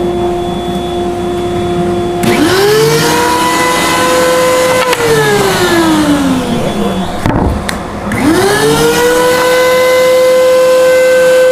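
Surface planer's motor whining, its pitch winding up about two seconds in, sliding down over the next couple of seconds, then winding back up after a knock and holding steady.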